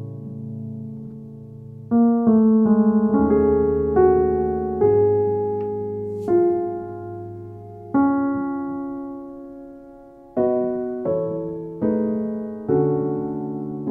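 Background music: a slow solo piano piece, notes and chords struck and left to die away.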